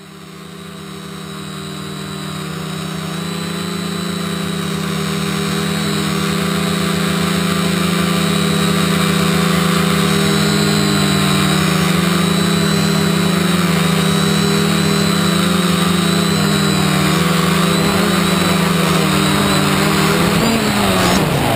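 Quadcopter's four 2215 brushless motors and 10-inch props humming steadily in flight, heard from the onboard camera, fading in over the first few seconds. Near the end the pitch falls quickly as the motors spin down on landing.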